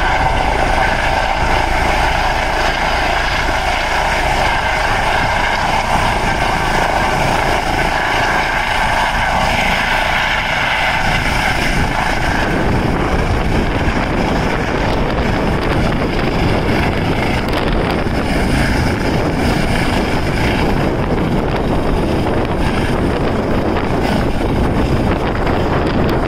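Eurocopter EC135 helicopter hovering low as it comes in to land, its turbine and shrouded tail rotor giving a steady high whine over the rotor noise. About halfway through, as it nears the ground close by, the rotor downwash buffets the microphone with loud wind rumble that drowns out the whine.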